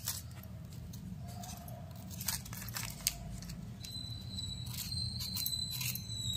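Dry onion skin crackling and tearing in scattered little bursts as an onion is peeled by hand, over a steady low hum. A faint steady high-pitched tone comes in about four seconds in.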